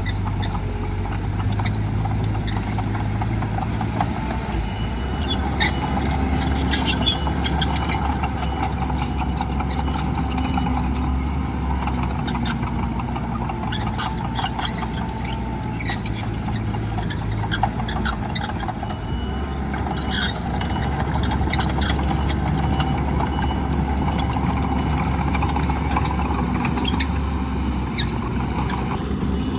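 Heavy earthmoving machinery running steadily with a low diesel drone that shifts in pitch a couple of times, with scattered clanks and rattles.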